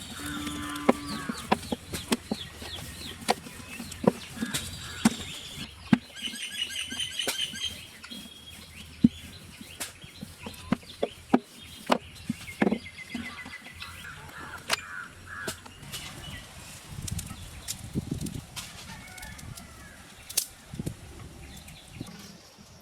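Chickens clucking and calling, with many sharp clicks and knocks scattered throughout.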